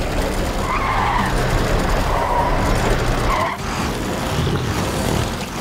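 Cartoon sound effects of heavy trucks straining to pull a truck out of mud: engines running and wheels spinning and skidding, a steady noisy rumble with a few faint squeals in the first half.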